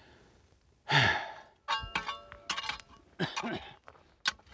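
A man lets out a loud sigh about a second in. Then a hand tool strikes rocky ground in a run of sharp metallic clinks that ring briefly.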